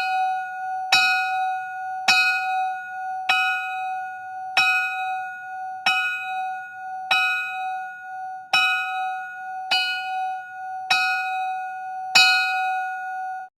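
A single bell struck over and over, about once every 1.2 seconds. Each strike rings on into the next at the same steady pitch. The ringing cuts off suddenly near the end.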